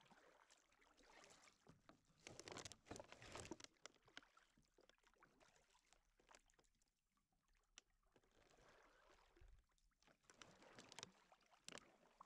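Faint kayak paddle strokes swishing and splashing in the water, in uneven bursts: a run of louder strokes about two seconds in, a quieter lull in the middle, and more strokes near the end.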